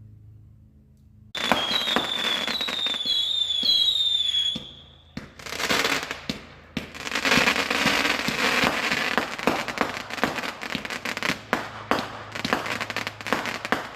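Fireworks going off. About a second in, a whistling firework shrieks on a high, repeatedly swooping tone for about three seconds. From about five and a half seconds a dense run of crackling and popping follows.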